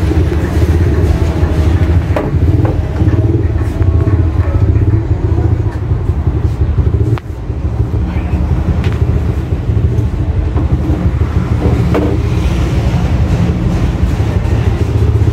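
A steady low rumble like running vehicle engines, with a few light knocks.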